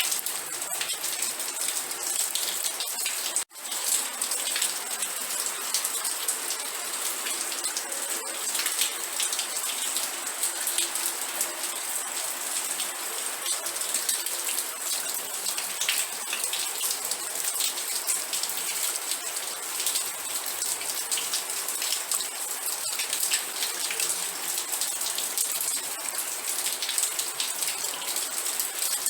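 Steady rain, a dense even hiss of many pattering drops. It cuts out for an instant about three and a half seconds in.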